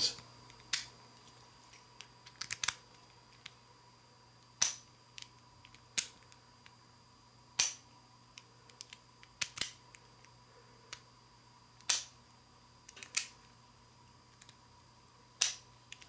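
1920s Best Universal 4-pin interchangeable-core brass padlock being locked and unlocked with its key several times: the shackle snaps shut and springs open in a series of sharp metallic clicks, some in pairs, a second or two apart.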